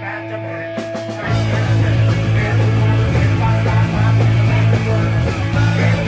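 Punk rock band music: a held chord over a steady bass note, then about a second in the full band comes in louder with drums and guitar.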